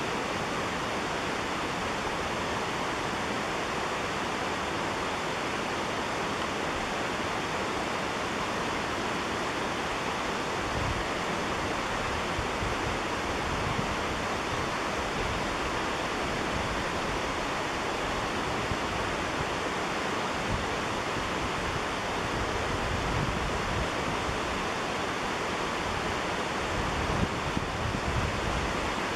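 Steady rushing noise like a mountain stream or waterfall, even throughout, with a few soft low bumps near the end; no bird calls stand out above it.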